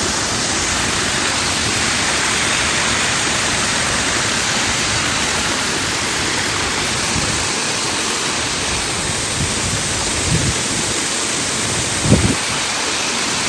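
Steady rush of water cascading down a mountain creek, an even hiss. Two short low thumps come about ten and twelve seconds in, the second louder.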